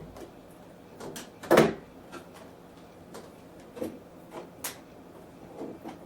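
Plastic side window panel of a 3D printer cabinet being pressed and bowed into its clips, giving a series of irregular plastic knocks and clicks. The loudest comes about a second and a half in.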